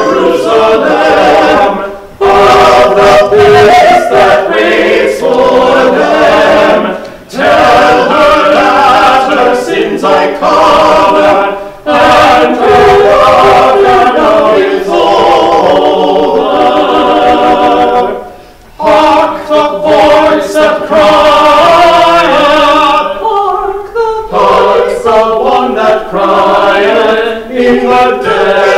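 Church choir of mixed men's and women's voices singing, in phrases with brief pauses between them.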